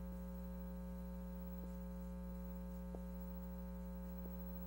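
Steady electrical mains hum on the recording, with three faint ticks.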